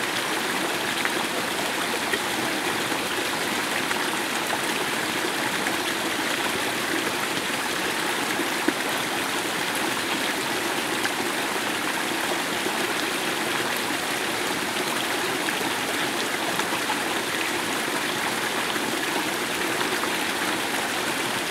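Flowing water rushing steadily, as from a stream, with an occasional faint tick.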